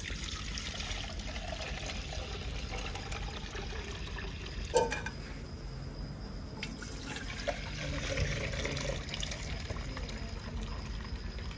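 Milk being poured from a plastic jug into aluminium pots, a steady gurgling stream, with a single knock about five seconds in.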